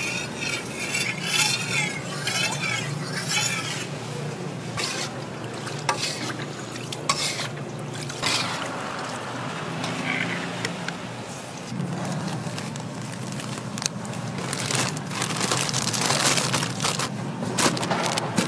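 Pancakes frying in a pan of hot oil, with a metal pancake press and spatula scraping and clinking against the pan.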